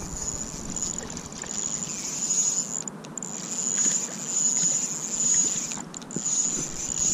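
Fishing reel being cranked, a steady high whir in spells with a few short pauses, as a hooked crappie is reeled in to the bank.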